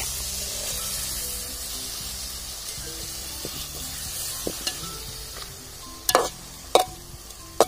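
Onion-tomato masala in hot oil sizzling hard as water is poured onto it, the sizzle dying down while a spoon stirs it in the metal pot. Near the end the spoon knocks sharply against the pot three times.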